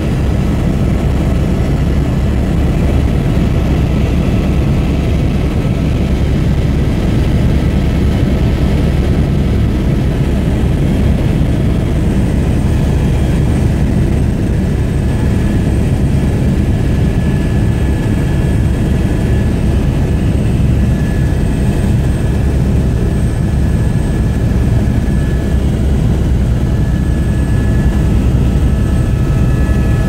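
Helicopter engine and rotor noise heard from inside the cabin in flight: a loud, steady low drone with a thin high whine running above it.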